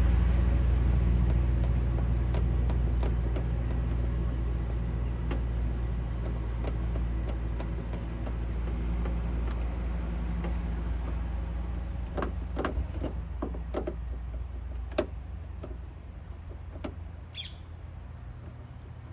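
Low, steady engine rumble that slowly fades away, with a few sharp clicks and taps in the last several seconds.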